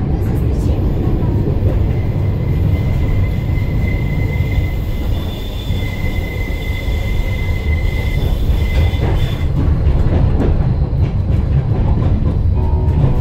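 Tram running along street track: a steady low rumble of wheels on rails. A thin high steady whine joins about two seconds in and fades out near the ten-second mark.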